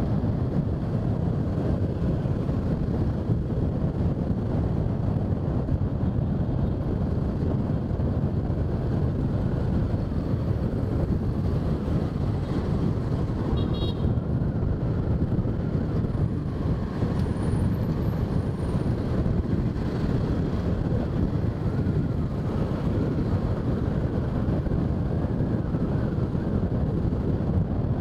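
Steady low rumble of a motorbike riding through city traffic, engine and road noise without a break. About halfway through, a brief high-pitched horn toot.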